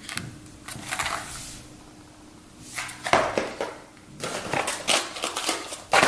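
Plastic fishing-lure packaging crinkling and crackling in several bursts as it is handled and opened.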